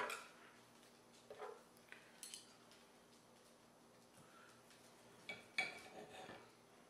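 Knife and fork on a plate while cutting into a baked chicken breast: a few faint clicks in the first half, then a louder cluster of clinks and scrapes about five and a half seconds in.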